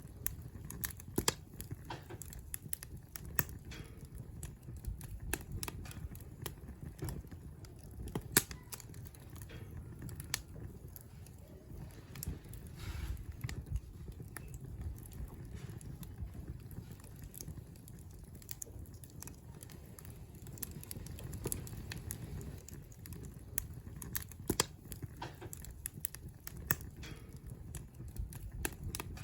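Wood campfire crackling: irregular sharp pops and snaps, a few louder ones, over a low steady rumble of burning.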